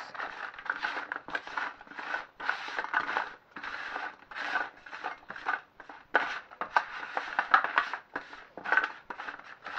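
Silicone spatula scraping and pushing cubes of butternut squash and red onion around a metal roasting tin, in quick irregular strokes.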